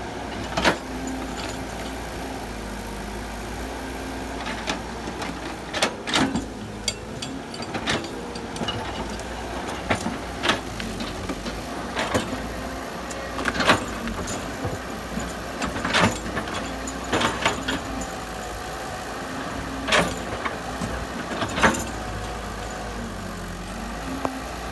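Caterpillar excavator's diesel engine running steadily, its pitch shifting a little, with sharp knocks every one to two seconds.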